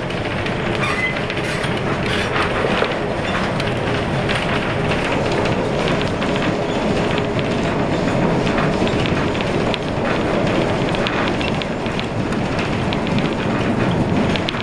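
Streetcar #553 running along its track, heard from inside its wooden passenger cabin: a steady rumble of wheels on the rails with frequent clicks and rattles.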